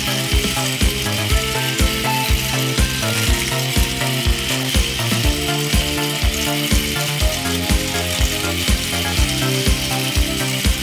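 Small battery-driven Capsule Plarail toy train motors and gears whirring steadily as three trains run on plastic track, with sharp clicks about twice a second as the wheels cross the track joints.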